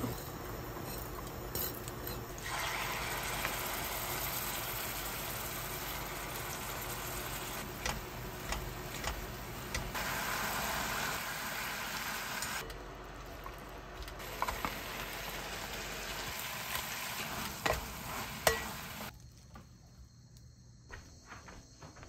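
Bulgogi and ribbon pasta sizzling in a stainless steel frying pan while being stirred with a wooden spatula, with scattered clicks of the spatula against the pan. The sizzling stops near the end.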